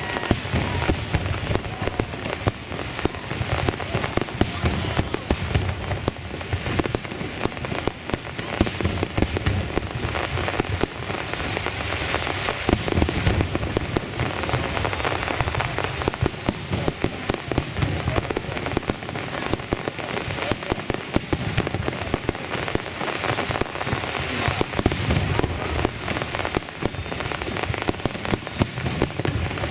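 Fireworks display: aerial shells bursting in a dense, continuous barrage, many sharp bangs and crackles a second with no pause.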